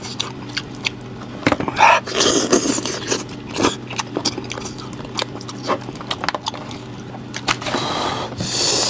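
A person eating noisily, chewing and pulling at goat-head meat: irregular wet clicks and smacks of the mouth, with two longer noisy bursts, one about two seconds in and one near the end.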